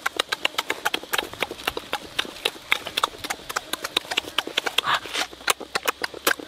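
Close-up eating sounds of a boy biting and sucking flesh off a grilled fish: rapid, irregular wet lip-smacking and mouth clicks, several a second, with a brief slurp about five seconds in.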